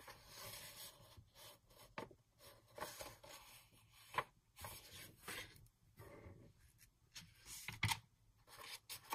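Faint rustling and rubbing of vellum sheets and cardstock pages as a paper pad is handled and its pages turned. The loudest rustle comes near the end, as a page is flipped over.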